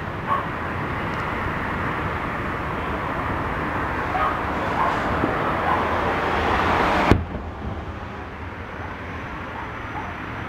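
Distant fireworks going off over steady outdoor background noise: a small pop just after the start and a loud sharp bang about seven seconds in.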